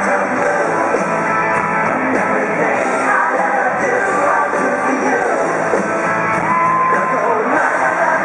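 Live pop-rock band playing, with a woman singing lead over electric guitar and drums, heard from the audience in the arena.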